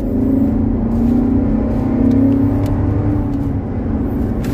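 Nissan Patrol Y62's engine and drivetrain heard inside the cabin while driving, a steady hum that dips about a second in and then rises a little. The car's automatic transmission slips and will not pull in the higher gears.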